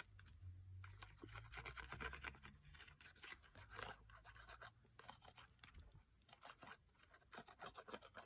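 Faint rustling, scratching and light taps of card stock being handled and pressed into place, with a faint low hum under the first part.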